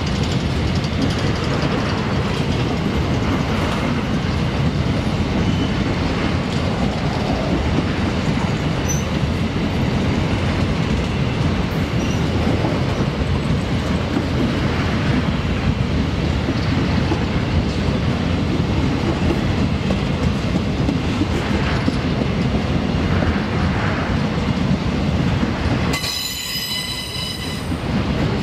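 A long freight train of loaded covered hopper cars and boxcars rolling past on a curve: a steady rumble of wheels and wagons with clatter and a little wheel squeal. Near the end the rumble drops away and a brief high ringing tone is heard.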